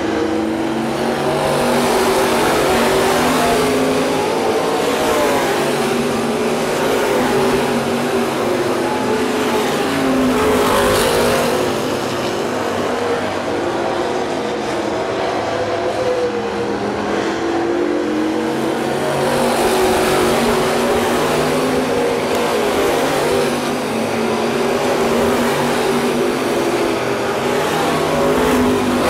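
A field of dirt-track race cars running around the oval, their engines rising and falling in pitch as they accelerate down the straights and lift for the turns. The sound swells each time the pack comes past, about every eight or nine seconds.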